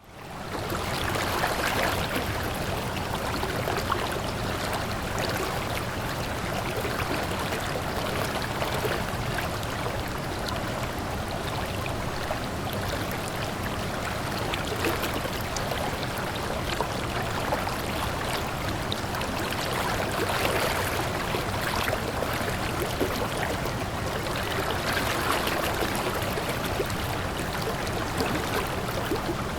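Steady flowing water, an even rushing with trickling, fading up from silence within the first second.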